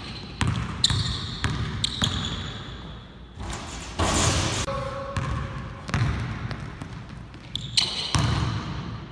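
Basketball bouncing on a hardwood gym floor, the knocks echoing in the hall, with a few short high squeaks. About four seconds in comes a louder, brief rushing noise.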